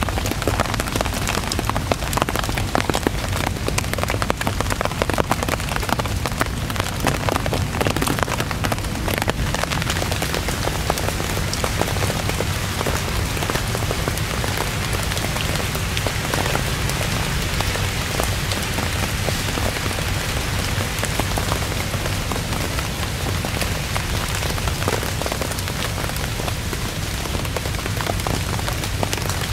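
Heavy rain falling steadily, with dense close drop hits pattering on a surface, sharpest and most numerous in the first ten seconds or so.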